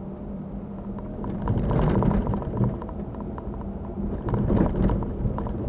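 Inside the cabin of a Mitsubishi Pajero on the move: the engine runs with a steady low rumble, growing louder twice, with short knocks and rattles from the vehicle driving over an uneven road.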